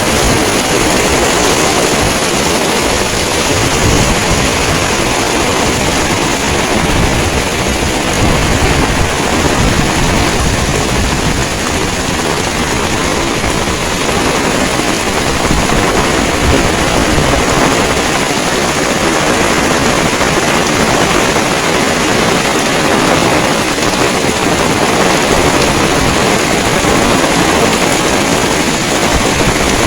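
Heavy rain pouring down in strong wind, a loud steady rushing hiss, with wind buffeting the microphone in an uneven low rumble.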